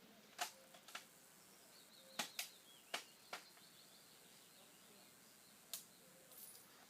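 Several sharp, distant gunshots at irregular intervals, most in the first three seconds and one more near six seconds in, over a quiet background.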